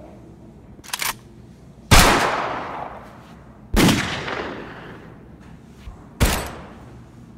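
Gunshot sound effects: three loud shots about two seconds apart, each a sharp crack with a long echoing fade. A brief click sounds about a second in.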